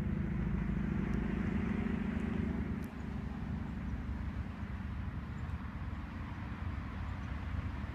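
A large engine running with a low, rhythmic chug. It is louder for about the first three seconds, then eases to a lower, steady rumble.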